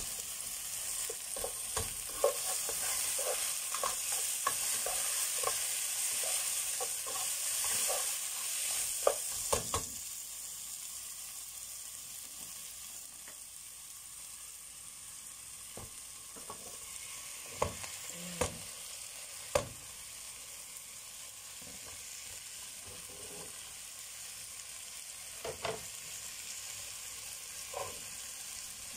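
Onions and garlic sizzling in butter in a nonstick pan while being stirred with a spatula. The sizzle is louder for the first ten seconds or so, then settles to a quieter hiss, with a few sharp knocks and clacks, several of them in the middle.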